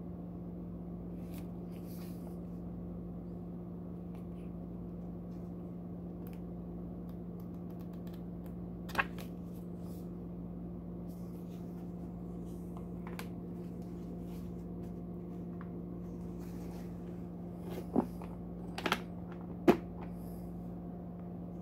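Plastic pistol hard case being shut: faint handling rustles, then a cluster of sharp clicks near the end, about 18, 19 and 20 s in, the last the loudest, as the lid closes and its latches snap. A steady low hum runs underneath.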